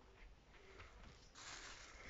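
Faint scuffling and rustling of two Bengal cats wrestling on carpet, with light scattered ticks, growing into a louder rustle about a second and a half in.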